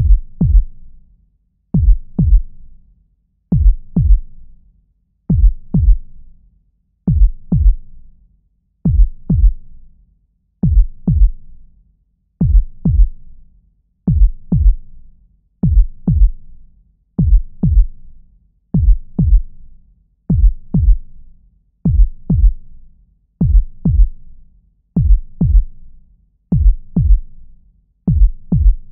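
Heartbeat sound effect: a slow, steady lub-dub, two deep thumps close together, repeating about every 1.8 seconds.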